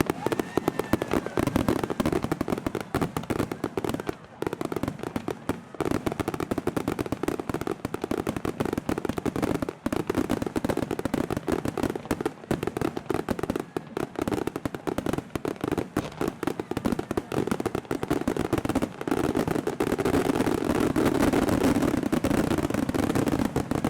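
Fireworks going off in quick succession: a steady, dense crackle of many small bangs.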